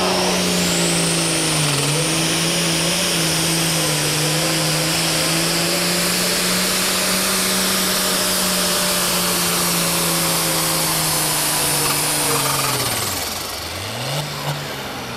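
Turbocharged diesel engine of a pro stock pulling tractor running flat out under load while dragging the weight sled, with a steady high whine above the engine note. About 13 seconds in the throttle is cut and the note falls away, followed by a couple of short blips.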